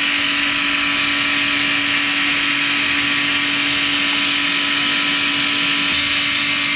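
Steady whooshing hiss with a steady low hum under it, the kind of noise a fan or running machine makes, unchanging throughout.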